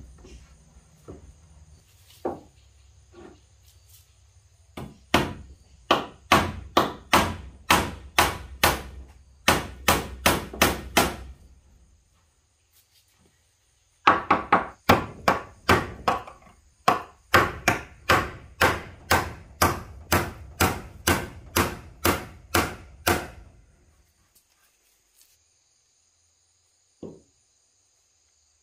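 Rhythmic, sharp strikes on wood, about two a second, in two runs with a short pause between them.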